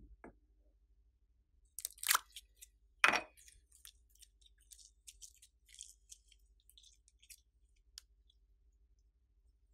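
Slime being worked by hand: two louder sticky bursts about two and three seconds in, followed by a scatter of small irregular pops and clicks.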